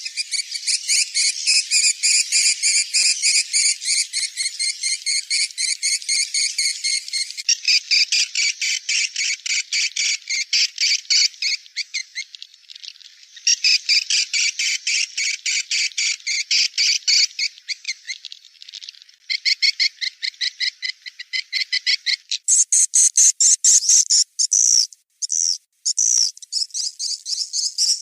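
Edible-nest swiftlets twittering: a dense, rapid run of high chirps, many a second, broken by a few short pauses, and higher-pitched near the end.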